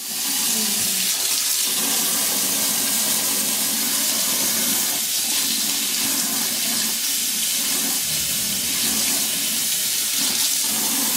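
Kitchen sink faucet running steadily, a thin stream of water splashing into the basin and over a small hand held in it.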